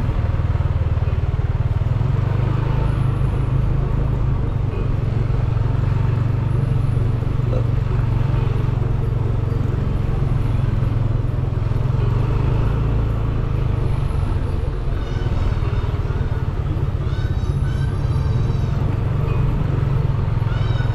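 A car's engine and road noise as it drives slowly along a busy street: a steady low rumble, with other vehicles and scooters around. A few short, high chirps come in about three-quarters of the way through.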